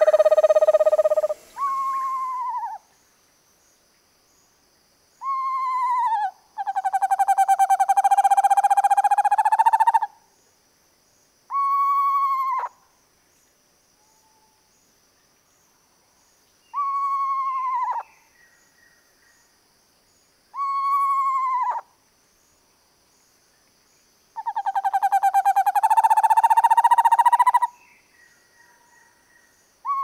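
Eastern screech owl calling: about five descending whinnies, each falling in pitch over about a second, and two long trills held at a nearly even pitch for three to four seconds each, one near the start and one near the end. A steady trill still sounding at the outset breaks off about a second and a half in.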